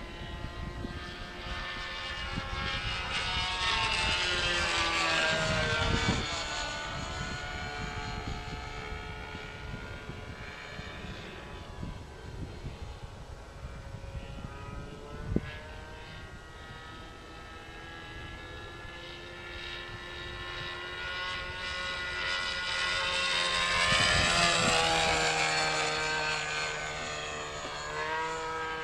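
O.S. FX .61 two-stroke glow engine of a radio-controlled model airplane, fitted with a muffler, buzzing overhead in flight. It passes close twice, about five seconds in and again near the end, each time growing louder and then dropping in pitch as it goes by. There is a single sharp tap about halfway.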